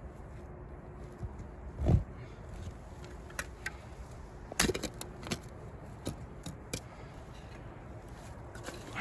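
Shovel digging into debris at the bottom of a well: a dull thud about two seconds in, then a cluster of sharp knocks and light clinks near the middle as it strikes the buried old lamp covers.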